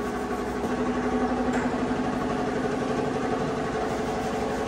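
Steady engine-like hum of a motor running, holding one pitch throughout, with a faint knock about a second and a half in.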